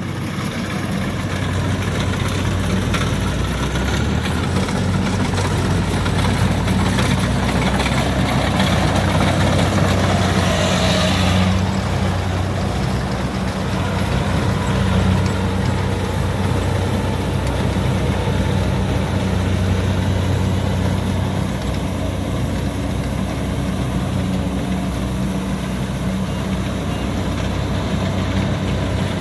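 Kubota DC70 combine harvester's diesel engine running steadily with a constant low drone, with a brief rushing hiss about eleven seconds in.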